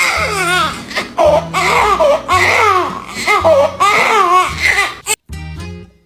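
A run of short, high, wavering wailing cries over music with a steady low bass line, cut off abruptly about five seconds in.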